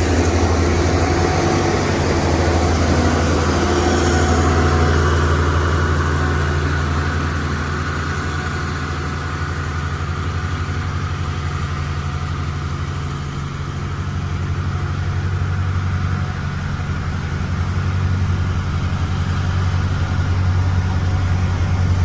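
Motor grader's diesel engine running steadily with a deep, even hum, easing off slightly midway and picking up again toward the end.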